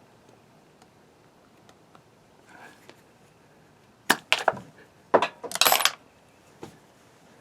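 Small hard parts clicking and clattering as an opened air stapler head is handled: a few sharp clicks about four seconds in, then a short rattle a second later.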